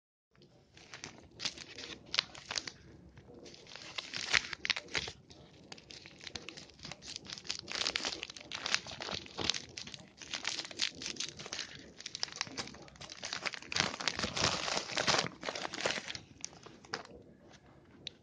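Packaging of Xiaomi Piston earphones being handled and opened: irregular crinkling and crackling of wrapping with some tearing, in waves that are loudest about fourteen seconds in and die away near the end.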